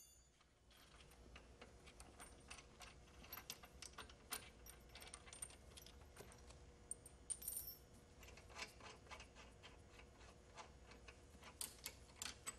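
Faint, irregular metallic clicks and clinks of a wrench and socket working loose the bolts that hold a gear pump to a steel machine frame, over a low steady hum.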